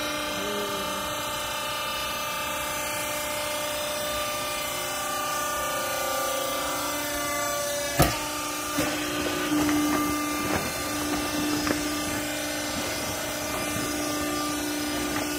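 Clothing baler running, its motor giving a steady hum. About halfway through there is a single sharp bang, followed by a few lighter knocks and some clatter.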